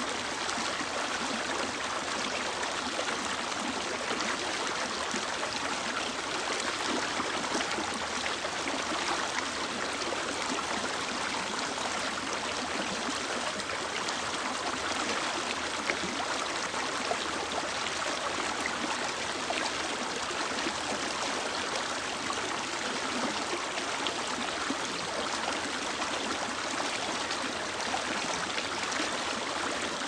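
Mountain stream or river running steadily over rocks, a continuous rushing and babbling of water.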